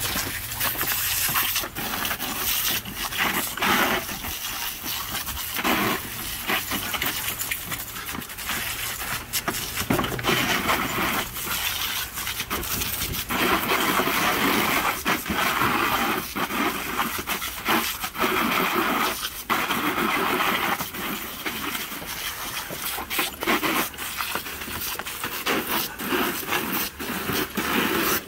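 Water jet from a garden hose spray wand hitting wet dogs, wooden boards and a plastic kiddie pool: a continuous hiss of spray and splashing, broken by many sharp clicks and knocks. It grows louder for several seconds around the middle.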